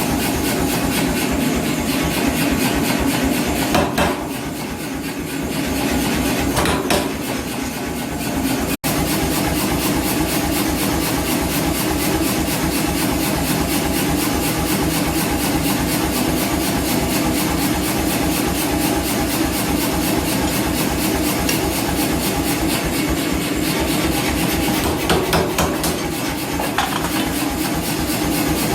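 Power hammer running and striking in a rapid, steady rhythm over the hum of its motor. The sound cuts out for an instant about nine seconds in.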